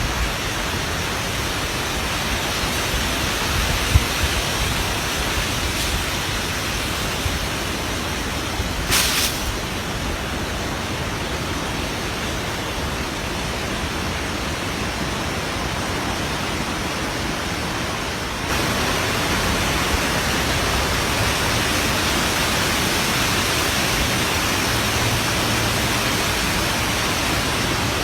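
Heavy tropical-storm rain and wind making a steady, even hiss, with a short sharper hiss about nine seconds in. The level steps up suddenly about two-thirds of the way through and stays louder.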